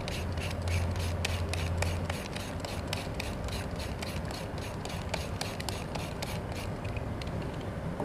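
A julienne peeler scraping down a raw carrot in quick, even strokes, about four or five a second, shredding it into thin strips. The strokes stop about two-thirds of the way through.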